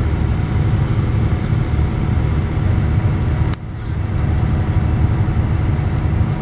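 Road vehicle on the move: a steady, loud low road rumble, broken by a sudden brief drop about halfway through.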